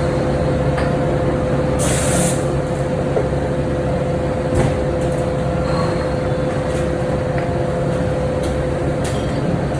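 Forging-shop machinery running steadily with a constant hum and a steady whine, a short burst of air hiss about two seconds in, and a few sharp metallic knocks.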